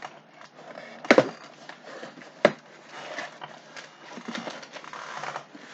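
Cardboard shipping box being opened by hand: two sharp snaps of the taped flaps pulling free, about a second and two and a half seconds in, then the rustle of cardboard being handled.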